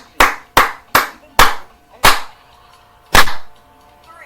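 Hands clapping in a steady rhythm, about three claps a second, stopping about two seconds in, then one louder single clap about a second later.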